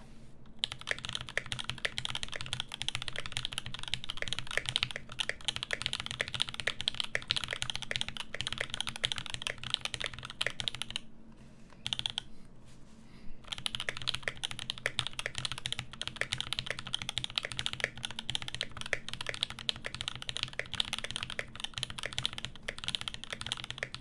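Typing on a KL-90 mechanical keyboard fitted with lubed and filmed 67g Tangerine linear switches, an aluminum plate and 4mm foam: a fast, steady stream of keystrokes, with a pause of about two seconds near the middle.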